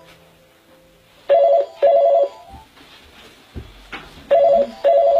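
Landline telephone ringing with the British double ring: two short warbling rings, then a pause, heard twice.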